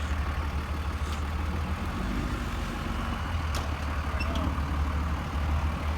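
Cummins 6BT inline-six turbo diesel in a 1984 Jeep Grand Wagoneer running steadily at low revs with a deep drone while rock crawling, with a couple of faint clicks.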